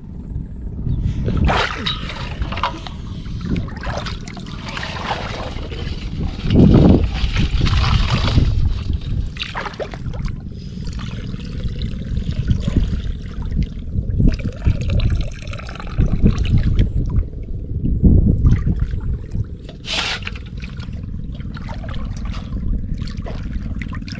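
Shallow muddy water sloshing, trickling and splashing around people wading chest-deep and feeling along the bottom by hand, with water tipped out of a metal basin.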